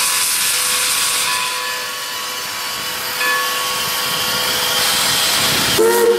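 Steam locomotive No. 40 hissing steadily as it stands under steam, with faint steady tones inside the hiss. A brief higher-pitched sound cuts in near the end.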